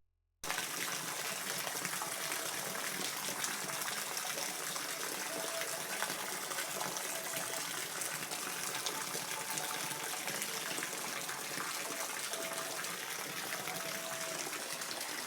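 Steady rain falling, an even hiss that starts about half a second in, with a few faint short tones now and then.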